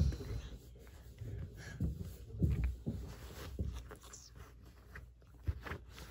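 Soft, irregular low thumps and rustling on a bed, with a few faint clicks: small children shifting about and handling plastic bottle caps.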